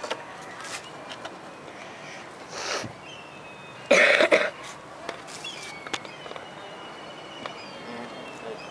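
A person coughs once, short and loud, about four seconds in, with a softer breathy sound a little before it.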